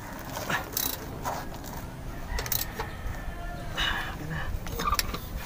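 Short metallic clicks and scrapes of a wrench tightening a fitting on the underside of a truck engine, so that it will not leak.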